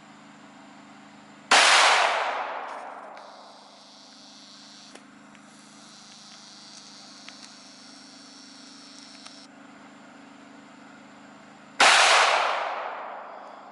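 Two single gunshots about ten seconds apart, each a sharp crack that echoes and dies away over a second or two.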